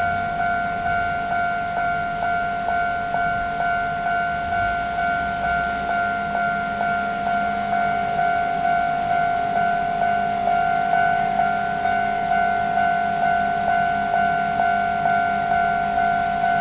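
Japanese railway level crossing warning bell ringing steadily, a repeated two-tone ding about one and a half times a second, signalling that a train is approaching.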